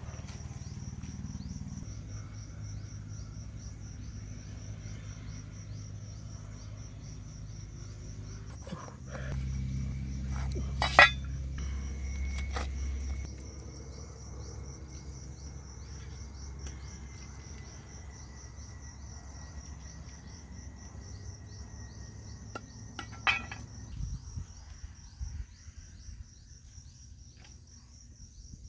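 Insects trilling steadily in a high, rapidly pulsed tone, with a few sharp knocks and clicks of handling, the loudest about eleven seconds in.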